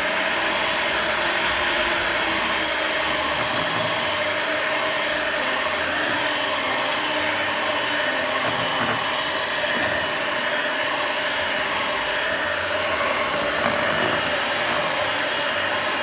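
Electric hand mixer running steadily, its beaters working flour into thick cake batter in a bowl.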